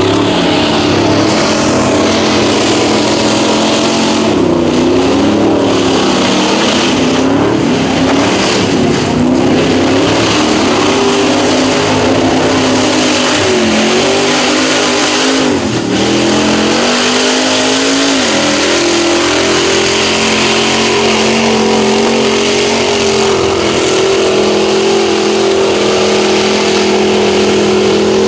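Engines of lifted mud trucks running hard at high revs while driving through a mud pit. The pitch rises and falls through the first half, then holds steady at high revs from about two-thirds of the way in.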